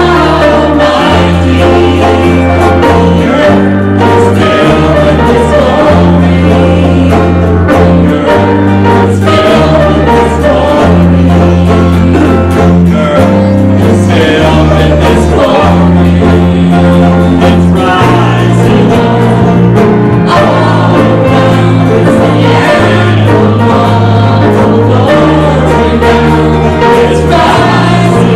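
Live church worship music: a band plays while voices sing a worship song together. Sustained bass notes change every second or two.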